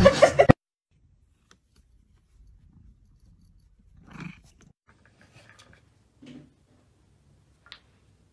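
A loud sound cuts off abruptly about half a second in. Then, over near quiet, come a few faint, short animal calls, about four and six seconds in, and a faint click near the end.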